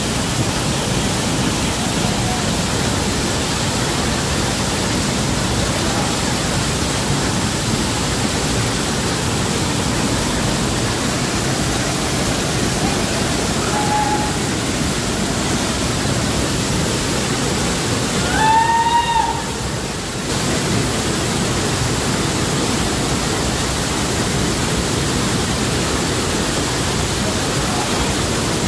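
Waterfall rushing with a steady, even roar. About two-thirds of the way in, a short high-pitched call rises and falls once.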